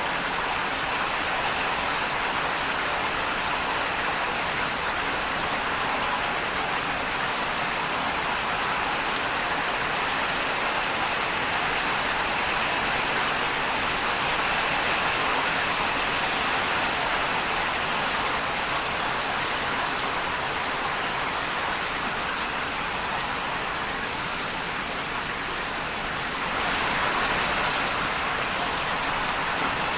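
Steady rain falling, an even, dense hiss of drops without thunder, growing slightly louder a few seconds before the end.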